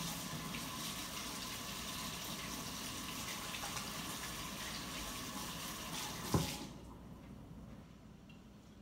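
Kitchen tap running steadily while hands are washed under it. About six seconds in there is a single sharp knock, and the running water stops right after.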